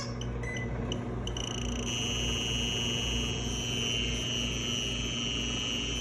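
Microwave oven running with a low electrical hum, while a handheld RF detector's buzzer gives a few short beeps and then, about a second in, a steady high-pitched alarm tone: the detector picking up microwave radiation leaking from the running oven.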